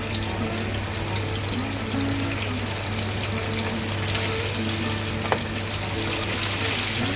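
Chicken karaage deep-frying in hot oil in a fryer basket: a steady crackling sizzle and bubbling, with a single sharp click about five seconds in.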